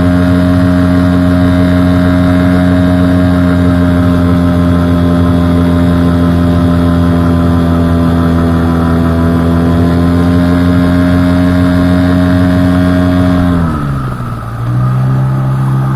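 Hangkai 6 hp outboard motor running steadily at a raised speed, then throttled down near the end, the pitch falling quickly to a lower steady run. The owner is trying to show an unexplained extra noise coming from the motor.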